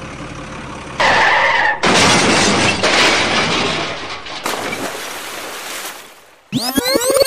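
Added crash sound effects for a toy dump truck going off the edge: a short skid screech, then a long smash of crashing and shattering that slowly fades. Near the end, fast sweeping pitch glides come in.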